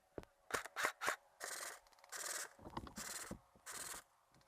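Three or four sharp clicks in the first second, then a steady rhythm of scuffing and rustling about every 0.7 s, typical of an airsoft player's footsteps and gear moving through brush.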